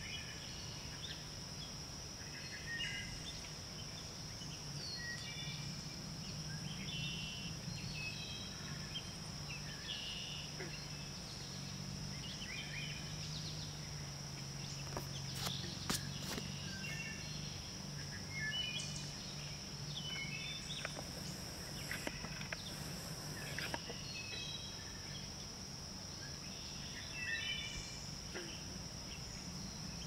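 Wood thrush singing, short phrases of several stacked notes repeated every couple of seconds, over a steady high insect drone and a low hum. A few sharp clicks come about halfway through.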